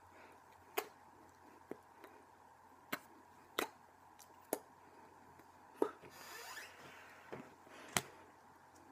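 Scattered sharp taps and slaps of hands meeting hands and body while signing in sign language, about eight over the stretch, with a brief rustle about six seconds in.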